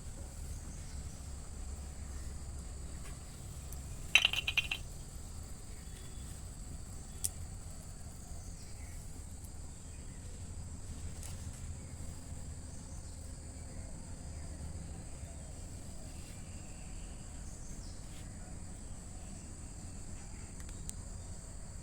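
A brief run of light metallic clinks about four seconds in and a single click a few seconds later, over a steady high-pitched whine and a low hum.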